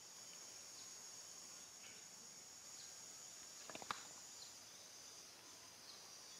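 Faint, steady high-pitched drone of insects, with a quick cluster of sharp clicks a little past halfway.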